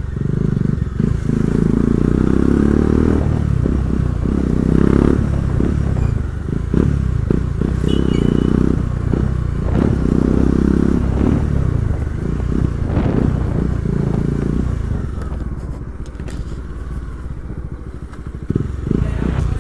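Motorcycle engine running under way, its note swelling and easing in several surges as the throttle is opened and closed. Scattered knocks and rattles sound through it.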